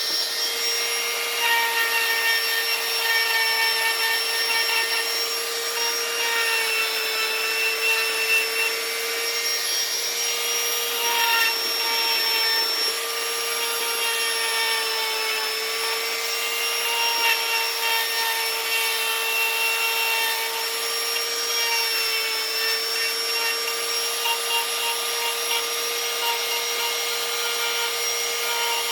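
Small high-speed power tool motor running steadily on wood, a steady whine whose pitch dips slightly now and then as it takes load, over the rasping noise of the cutter on the wood.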